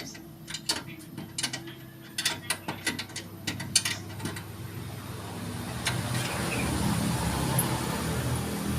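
Hand tools clicking on metal in short irregular runs, like a ratchet wrench working the exhaust fittings, then from about halfway a steady low rumble that grows louder.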